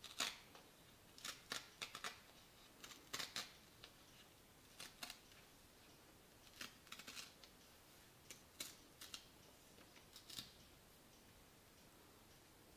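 A sheet of white paper being creased and torn in half along its fold by hand: short, crisp crackles and rips in small clusters every second or two.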